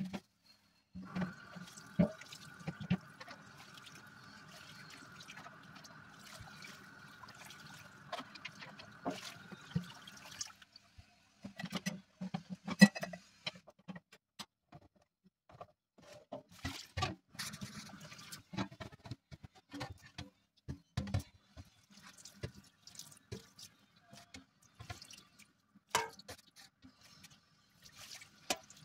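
Kitchen tap water running into a sink for about ten seconds while a frying pan is washed, then scattered clinks and knocks of dishes being handled, with one sharp clank about thirteen seconds in.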